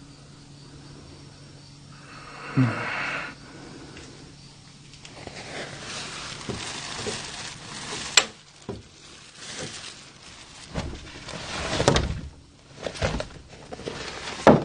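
Hanging clothes and plastic garment covers rustling as a hand pushes through them in a wardrobe, with a few sharp knocks. There is a short, louder sound with a falling pitch about two and a half seconds in.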